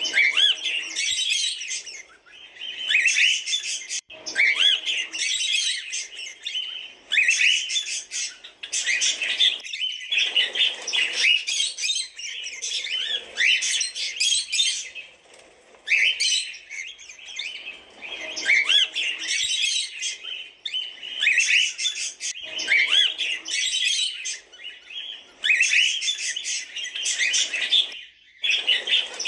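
Cockatiels chirping in repeated bouts of a second or two, with short pauses between.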